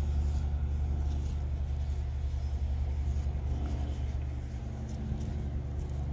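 Steady low machine hum of shop equipment, with a few faint light clicks of small metal seal parts being handled.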